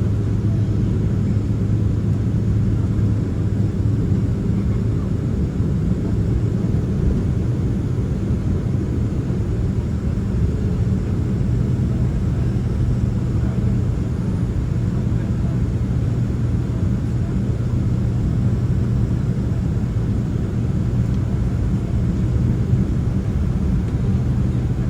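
Steady low rumble inside the cabin of a Boeing 767-300ER as it taxis after landing, with a constant hum from the idling engines and cabin systems.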